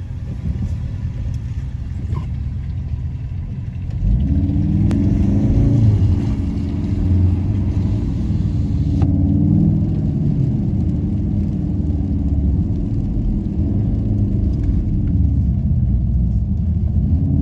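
Car engine running with low road rumble, heard from inside the car. From about four seconds in it gets louder and its pitch rises and falls as the car drives the winding mountain road.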